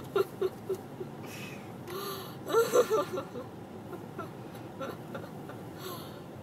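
A young woman giggling in short breathy pulses that trail off, then a wheezy breath and another burst of giggles about two and a half seconds in. She is still groggy after having her wisdom teeth out. Steady car-cabin road noise runs underneath.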